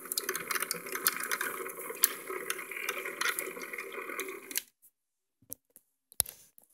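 Small motor of a tornado-vortex toy running with a steady whir and dense rattling clicks; it cuts off suddenly about four and a half seconds in, followed by a few light clicks.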